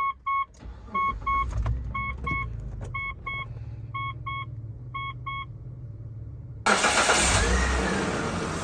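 Mitsubishi Pajero starting and running, with the dashboard warning chime double-beeping about once a second over the low engine rumble. About seven seconds in, a sudden much louder rush of engine and air noise takes over.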